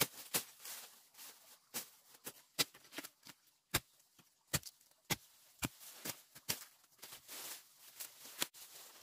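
Someone moving on foot through forest undergrowth: irregular sharp snaps and crackles of dry twigs and leaves underfoot, with plants rustling as they brush past.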